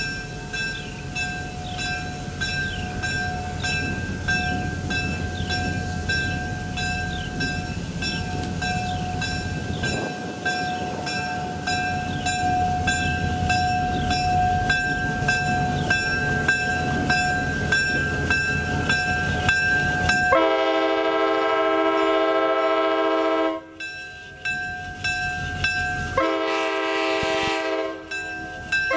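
Diesel locomotive approaching at low speed, its engine rumbling under a bell that rings steadily throughout. About 20 seconds in, its air horn sounds a blast of about three seconds, then a shorter second blast near the end.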